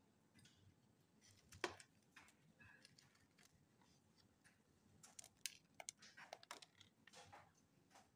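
Near silence with faint handling sounds: scattered small clicks and rustles, a sharper click about one and a half seconds in, and a run of quick light clicks near the end.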